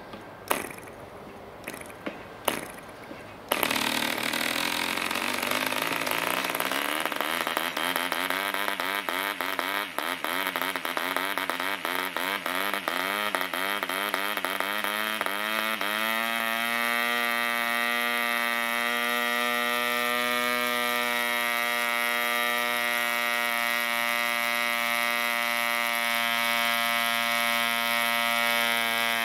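1950s Mills 1.3 cc model diesel engine being hand-flicked by its propeller: a few single pops, then it catches about three and a half seconds in. It runs with a wavering, hunting pitch while the compression lever on top is being set, then settles into a steady even run from about sixteen seconds in.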